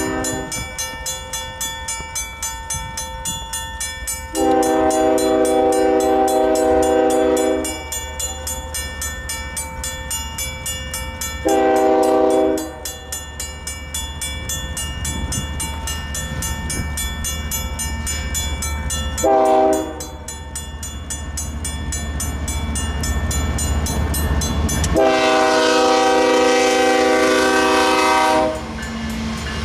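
Mechanical crossing bell ringing steadily as a diesel freight led by two GE ES44DC locomotives sounds its multi-note air horn for the crossing: a long blast about four seconds in, two short ones, then a last long blast near the end. The low rumble of the locomotives grows louder as they reach the crossing.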